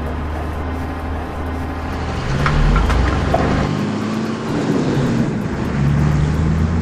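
Heavy vehicle engines running, a steady low drone with a few knocks a little over two seconds in.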